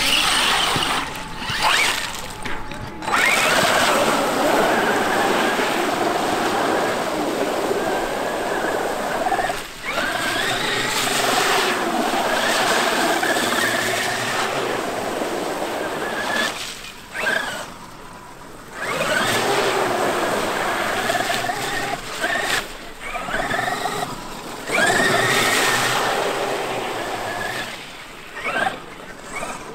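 Electric radio-controlled trucks' motors whining, the pitch rising and falling as they accelerate and slow through mud and water. The sound drops away briefly about a third of the way in and again for a couple of seconds past the middle.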